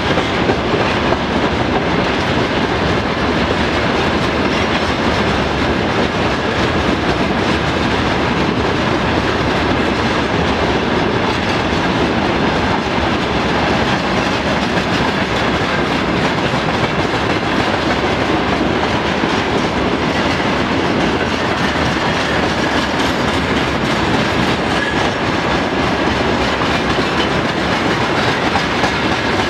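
Freight train of railway tank cars rolling past at close range: a steady, loud clatter and rumble of steel wheels over the rails. A faint steady high tone runs through it.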